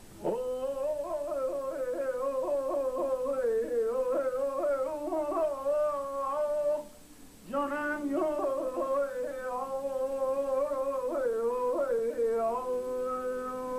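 A single voice singing a slow melody full of quick wavering ornaments, breaking off briefly for a breath about seven seconds in, then settling into a long held note near the end.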